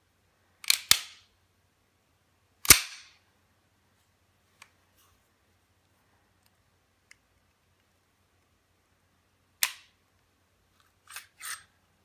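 A Beretta 92FS pistol being worked by hand, giving a few sharp metallic clacks: a quick double clack about a second in, the loudest single clack near three seconds, another near ten seconds and a quick pair near the end.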